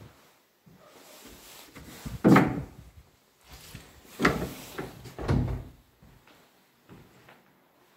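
An internal fire door being handled: a few dull thuds and knocks, the loudest about two seconds in and two more around the middle, as the door is pushed open and swings shut.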